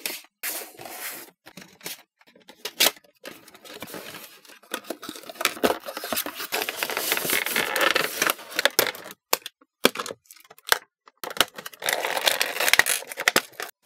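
Unboxing handling noise: a box cutter slitting a cardboard toy box, then cardboard and clear plastic packaging scraping, clicking and crinkling as the clear plastic stand and the plastic tray holding the figure are pulled out. The rustling is heaviest in the middle and again near the end.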